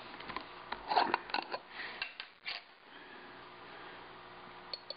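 A metal screw lid is twisted off a small glass jar, with a run of crisp clicks and scrapes over the first two and a half seconds. After that only a faint steady hum remains, with a couple of small ticks near the end.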